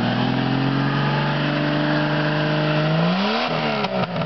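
1995 Jeep Cherokee XJ engine held at raised revs, its pitch climbing slowly, then dropping back toward idle about three seconds in. The engine is running with Seafoam added to clean it out.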